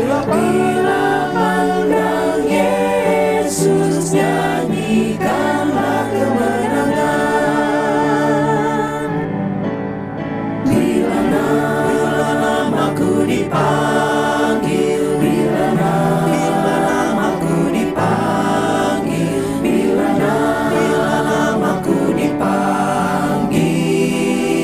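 A choir singing a gospel hymn, the voices carrying a slow melody with vibrato on held notes.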